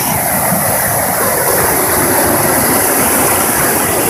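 Muddy flash-flood water rushing down a channel after a heavy downpour: a loud, steady rush.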